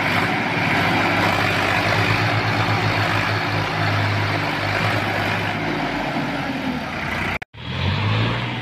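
Diesel engines of two Sonalika tractors chained together in a pull, running steadily with a low pulsing note. About seven and a half seconds in the sound cuts out for a moment, then a tractor engine runs on.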